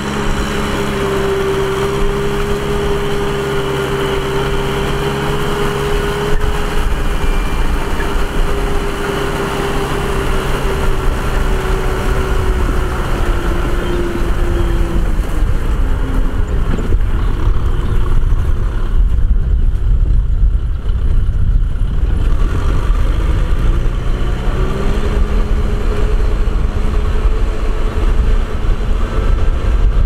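Farm tractor's diesel engine running under load. Its steady note sags slightly about halfway and gives way to a low rumble, then comes back rising in pitch near the end.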